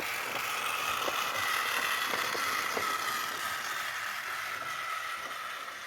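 Small electric toy motor running with a steady high whine that sags slightly in pitch, with a few faint clicks.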